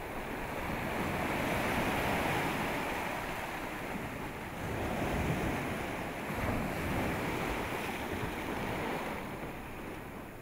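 Ocean surf breaking and washing up a sandy beach, the rush of water swelling and easing as successive waves come in.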